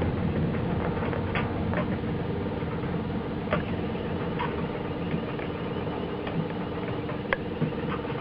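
Container crane machinery running with a steady mechanical hum, with a fine ripple on one of its tones, while the spreaders are lowered onto a container. A few sharp clicks sound over the hum, the loudest about seven seconds in.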